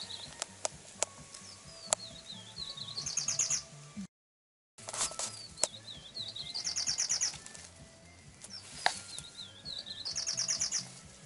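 Bird song: a wavering whistled phrase ending in a fast high trill, sung three times, with scattered sharp clicks. The sound cuts out completely for under a second about four seconds in.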